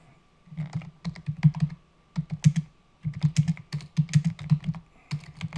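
Typing on a computer keyboard: a run of quick key clicks in four short bursts with brief pauses between them.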